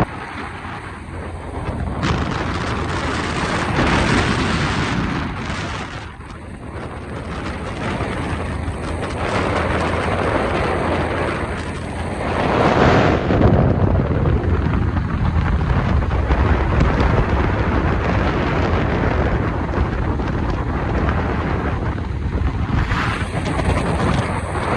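Loud wind buffeting the microphone, with a deep rumble that swells and eases throughout.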